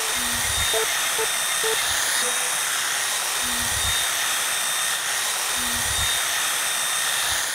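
A steady, even hiss like static or white noise, with a few faint musical notes beneath it.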